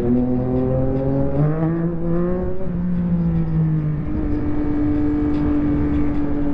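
2023 Yamaha MT-09 SP's three-cylinder engine through a full Akrapovic race exhaust under way: the revs climb for a second or two, ease back a little, then hold at a steady note.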